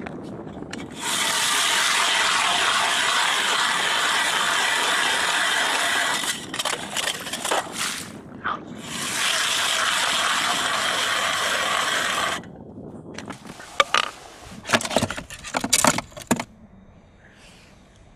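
Ice auger blades grinding and scraping as they cut down through lake ice, in two steady stretches of about five and three seconds with a short pause between. A few sharp knocks follow near the end.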